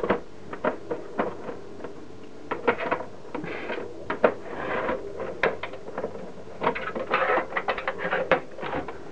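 The metal case of a 3Com Switch 4228G network switch being handled as its clipped-on lid is worked off: scattered sharp clicks and knocks with a few short scrapes of metal and plastic.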